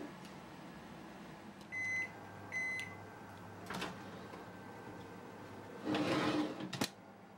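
An oven range beeps twice, two short high electronic tones under a second apart. A metal baking pan then knocks and scrapes as it slides onto the oven rack, and a sharp click follows near the end.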